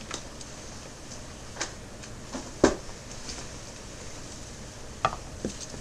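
A few scattered light clicks and knocks over a steady hiss, the loudest a sharp knock about two and a half seconds in, with two smaller ones near the end.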